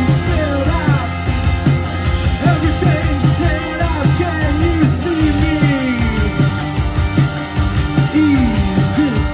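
Live post-punk rock band playing loud: a steady drum beat under bass and guitar, with sliding melodic lines on top.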